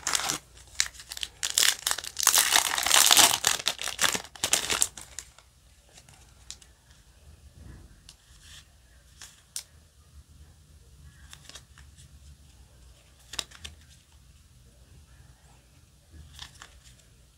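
A foil Yu-Gi-Oh! booster pack being torn open, loud for the first five seconds or so. After that, quiet handling of the cards as they are leafed through, with a few soft clicks.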